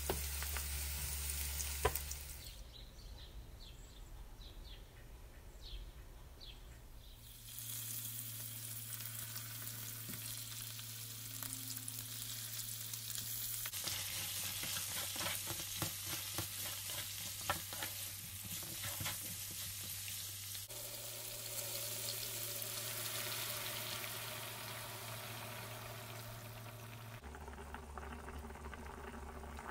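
Onions, garlic and then mutton pieces sizzling in hot oil in a nonstick pan, stirred and scraped with a spatula. Near the end, meat bubbling in broth at the boil.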